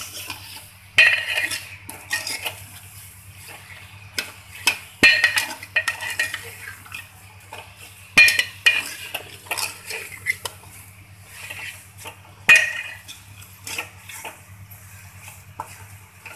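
Metal spoon scraping and clinking against a steel cooking pot as chunks of mutton are stirred through a thick ghee and onion paste. Sharper clanks stand out about one, five, eight and twelve seconds in.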